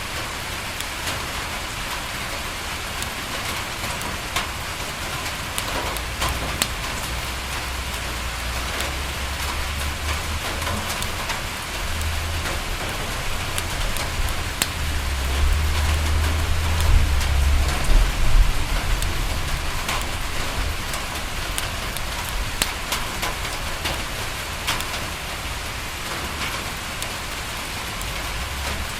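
Steady rain falling on a window, with scattered sharp crackles and ticks, mixed with a fireplace. A low rumble swells and fades around the middle.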